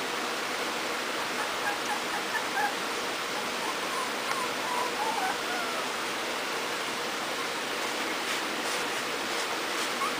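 Pembroke Welsh Corgi puppies giving faint, high little squeaks over a steady hiss while they eat mush from a dish. The squeaks come in short bursts from about one and a half to five and a half seconds in.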